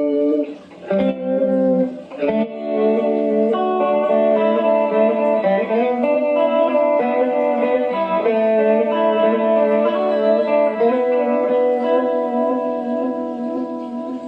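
Clean electric guitar played through a Behringer 69 Vibe pedal in vibrato mode with depth and level turned up, giving a tremolo-like wavering effect. A few picked chords open, then long sustained chords ring on.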